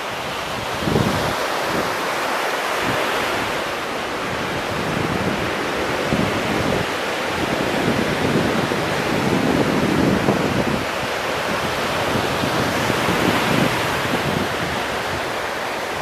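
Small ocean waves breaking and washing onto the beach in a continuous surf rush, rising a little around the middle as a wave breaks. Wind buffets the microphone with low, irregular rumbles.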